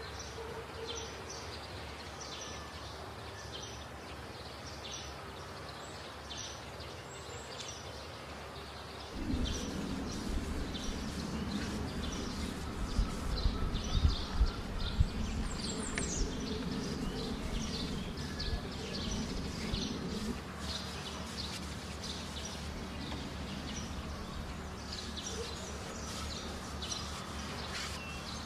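Outdoor ambience with a bird chirping over and over, short high notes about twice a second. From about a third of the way in until past the middle, a low rumbling noise comes in with a few louder knocks.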